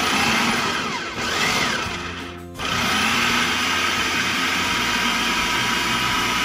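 Electric food processor motor switched on, chopping a wet mushroom-and-carrot mixture. It slows and dies down about two and a half seconds in, then starts again at once and runs steadily.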